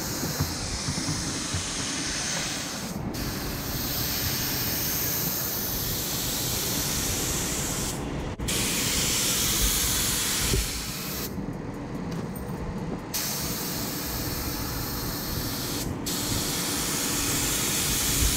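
Compressed-air spray gun hissing steadily as it sprays primer, breaking off briefly a few times.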